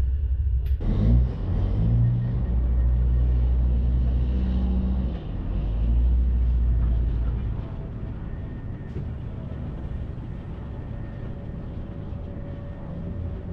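Straight-piped PACCAR MX13 diesel truck engine pulling hard under load. It surges about a second in, dips briefly near five seconds, then eases off to a lower steady rumble about eight seconds in.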